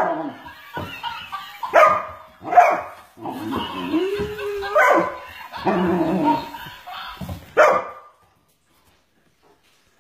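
Great Weimar (Great Dane × Weimaraner cross) dog barking several times in short, loud barks, with a longer rising call in the middle; the barking stops about eight seconds in.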